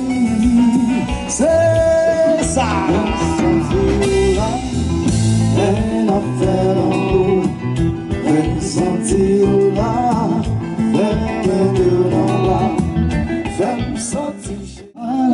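Live band playing: a male singer over electric guitars, keyboard and drums. The music drops away for a moment near the end, then comes back.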